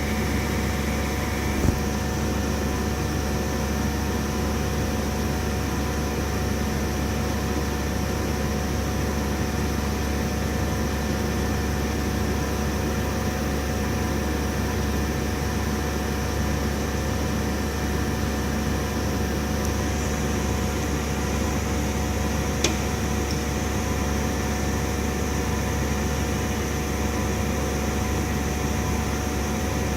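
CNC milling machine running: a steady hum with a few constant tones, unchanging throughout, with two sharp clicks, one about two seconds in and one about three-quarters of the way through.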